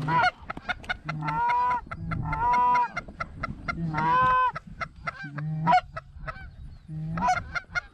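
Canada goose honking: about five drawn-out two-note honks, each breaking from a low note up to a higher one, with quicker short clucks between them.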